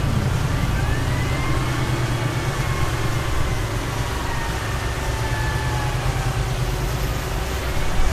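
Heavy diesel engine of a dump truck running steadily with a deep rumble, with faint high whining tones that slowly slide in pitch over it.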